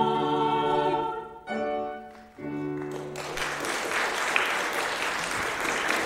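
Women's vocal ensemble holding and releasing the final chords of a song, the last one ending about three and a half seconds in. Audience applause starts just before it ends and carries on.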